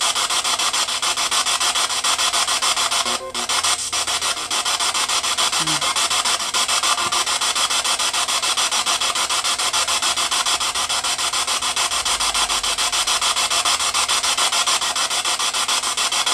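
Spirit box sweeping through radio frequencies: a continuous, loud hiss of static, rapidly chopped as the scan steps from station to station.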